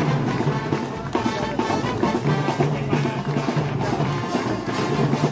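Live festival band music: a brass band playing over drums and cymbals, with a steady beat of about two strikes a second and held low brass notes.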